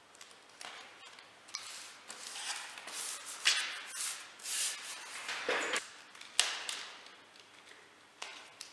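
Irregular rustling and scraping from hand work, in uneven strokes with a few louder scrapes in the middle.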